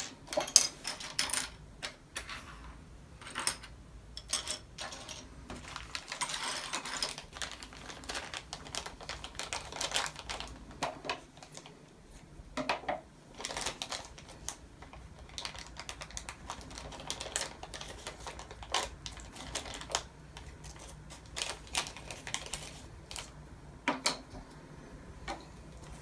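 LEGO plastic pieces clicking and clattering on a tabletop as they are picked through by hand and pressed together, a run of sharp irregular clicks with a denser stretch of clatter about six seconds in.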